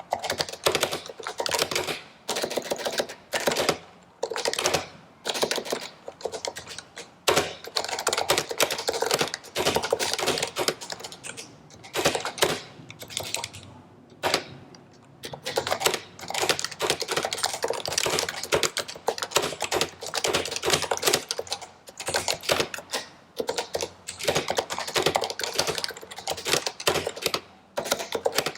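Stock HHKB Professional Hybrid keyboard with Topre switches being typed on: rapid runs of keystrokes in bursts of a few seconds, broken by short pauses.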